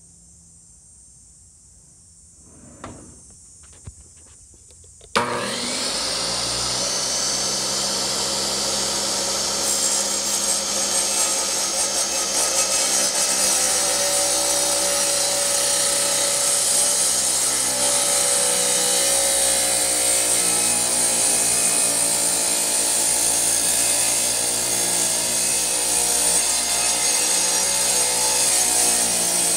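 Wet tile saw switched on about five seconds in and running loudly as its blade cuts through a stack of several tiles at once, with a whine whose pitch wavers under the load of the cut. A couple of faint clicks come before it starts.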